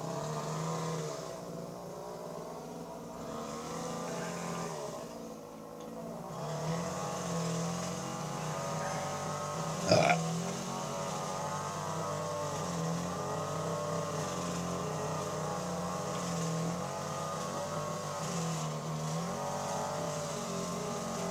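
A motor engine running steadily, its pitch wavering slowly up and down, with one sharp click about ten seconds in.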